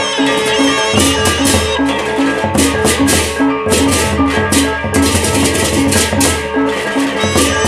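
Sasak gendang beleq ensemble playing a baleganjur-style piece: large double-headed drums beaten under repeated clashing hand cymbals, with a short metallic note repeating about twice a second.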